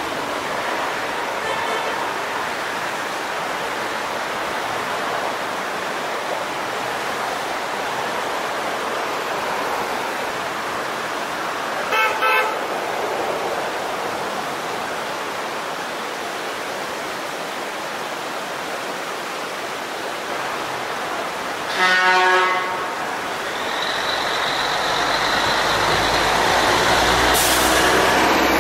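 Vehicle horns honking as warning at a blind corner: a short double toot about twelve seconds in and a longer, louder honk about twenty-two seconds in, over the steady rush of the creek. Near the end a heavy truck's engine rumble grows as a dump truck comes through.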